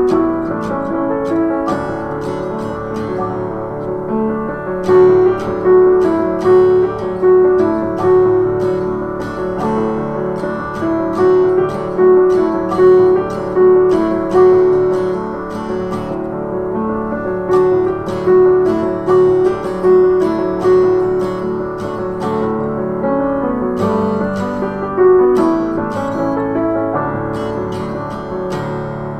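Music: a slow piano and guitar accompaniment with notes struck at an even pace.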